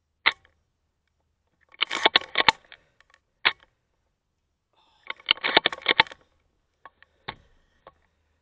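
Airsoft guns firing: a single sharp crack, then a quick string of rapid shots, another single crack, a second rapid string, and a few scattered cracks near the end.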